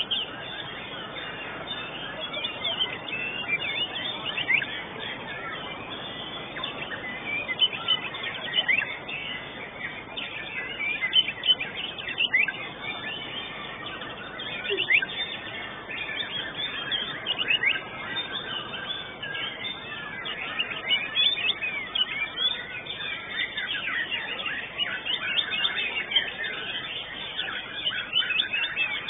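White-rumped shama (murai batu) singing in a competition: an unbroken run of quick chirps, whistles and short sweeping notes, with a few sharper, louder notes between them.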